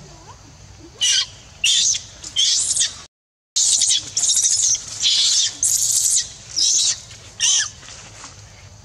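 Baby macaque screaming in distress, a quick series of short, shrill screams while an older monkey grabs and holds it. The sound cuts out completely for a moment about three seconds in.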